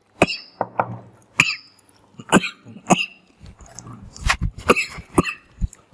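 A person eating hot cup noodles at racing speed: a quick run of about nine short, sharp coughs, gulps and slurps, roughly one every half second.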